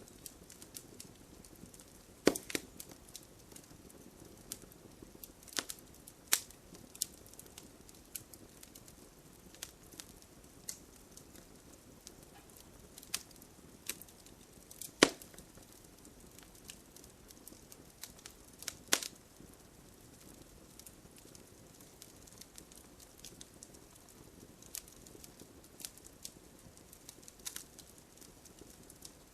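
Wood fire crackling in a fireplace: irregular sharp pops and snaps over a low steady hiss, with louder snaps about two seconds in, halfway through and near nineteen seconds.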